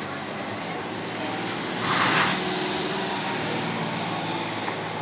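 A vehicle engine running steadily, with a short louder rushing noise about two seconds in.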